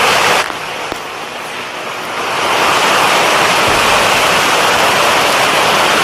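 Waterfall and fast river water rushing as one steady, loud noise. About half a second in it drops and turns duller, then swells back to full strength about two seconds later.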